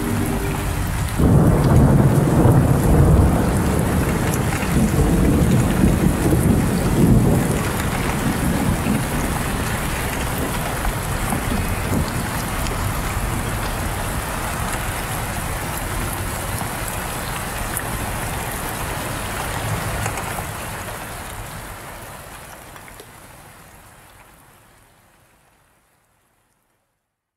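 Steady rain with a heavy rolling rumble of thunder, coming in as the last held chord of the music stops about a second in. The rain then fades slowly away to silence near the end.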